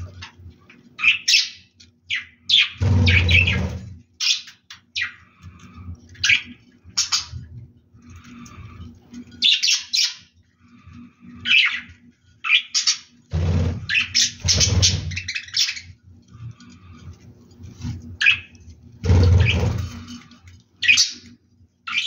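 Budgerigar chicks in a clay pot nest chirping and squawking in many short, high calls. Three times a longer burst of low rubbing noise comes in, loud enough to be the loudest thing at those moments.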